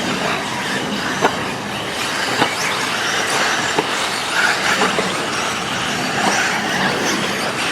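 1/8 scale electric RC buggies racing on a dirt track: a steady mix of electric motor whine and tyre noise, with a few sharp clicks.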